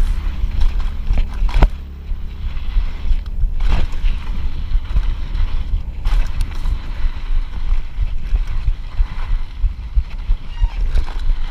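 Wind buffeting the action camera's microphone as a Giant Trance mountain bike rattles over a dirt trail, with a few sharp knocks from bumps.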